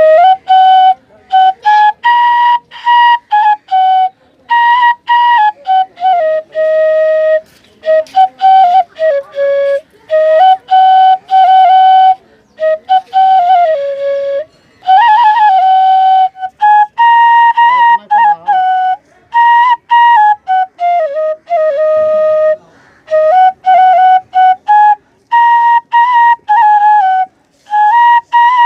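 Bansuri, an Indian bamboo flute, playing the melody of a Chhath devotional song in short phrases with brief pauses between them.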